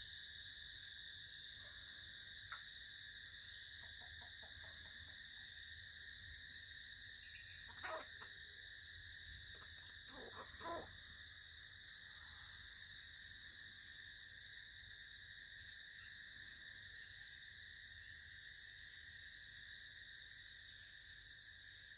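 Steady insect chorus pulsing about twice a second, with a few short animal calls about eight and ten seconds in.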